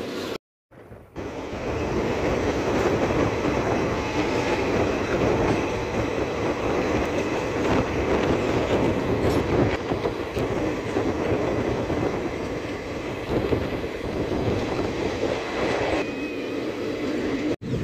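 Passenger train coach running along the track, heard through an open coach window: a steady rumble of wheels on rails. The sound cuts out briefly about half a second in.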